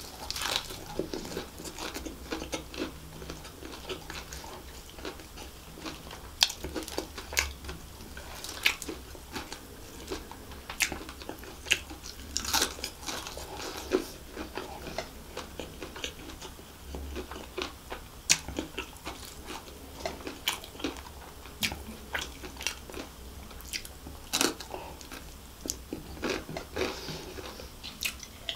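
Close-miked chewing of crispy fried chicken and biryani rice, with sharp, irregular crunches of the fried coating.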